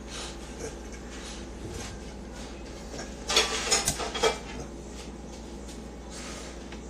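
A man laughing under his breath: a few short, breathy bursts of laughter about three to four seconds in, over a faint steady low hum.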